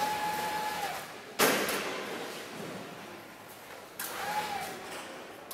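Dynaco high-speed fabric roll-up door running, its drive giving a faint whine under the rattle of the curtain. A sharp knock comes about a second and a half in and another about four seconds in; the second comes as the door's bottom edge meets a person standing under it, the door's safety edge triggering it to stop and reverse.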